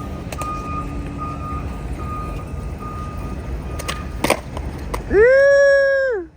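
Skateboard wheels rolling over concrete with a low rumble, and a few sharp clacks of the board about four seconds in. Near the end a loud, high, held tone lasts about a second and then falls away.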